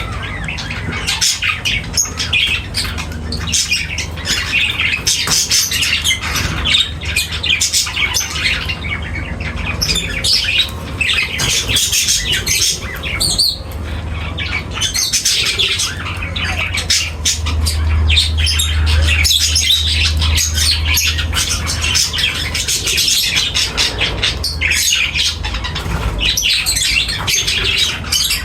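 A flock of pet budgerigars and lovebirds chirping and squawking continuously in a dense, overlapping chatter. A steady low hum runs underneath and grows louder for a few seconds past the middle.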